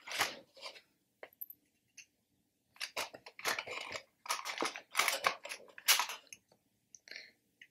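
Cardboard packaging rustling and scraping as a boxed poker set is opened and handled, in several short spells with pauses between.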